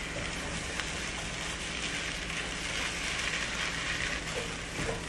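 Fried rice sizzling steadily in a nonstick frying pan, with a spatula stirring and scraping through it and now and then clicking against the pan.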